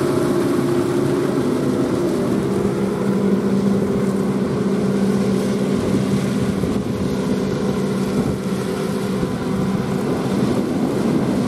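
John Deere 8R tractors running steadily under load as they pull KMC six-row peanut pickers through the field. The nearest rig passes close by. Its engine drone holds an even pitch, mixed with the running noise of the pickers.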